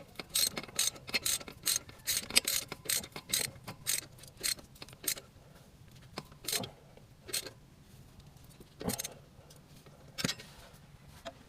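Ratchet wrench clicking in quick, uneven strokes for about five seconds, then a few separate clicks.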